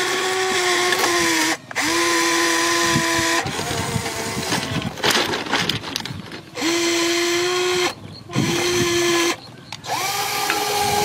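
Electric gear motors of an RC model excavator whining in runs of one to two seconds as its tracks and arm move, each run starting and stopping abruptly. In the middle there is a few seconds of irregular clattering.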